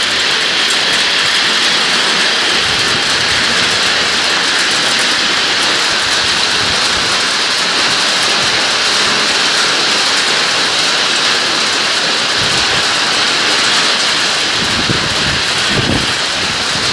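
Hail and heavy rain pelting down during a hailstorm, a steady dense hiss of many small impacts.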